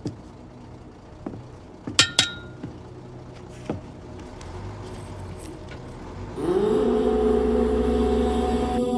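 A few sharp knocks over a low steady hum, the loudest a ringing metallic or glassy clink about two seconds in. About six and a half seconds in, a droning chant begins, gliding up and then holding one steady low note.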